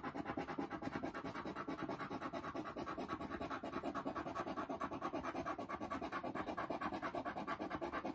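Handheld scratcher tool rubbing the coating off a scratch-off lottery ticket in quick, even back-and-forth strokes.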